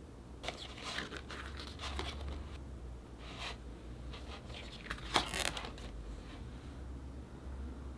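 Packaging being handled and opened: irregular crinkling and rustling, with the sharpest, loudest crackle just after five seconds in.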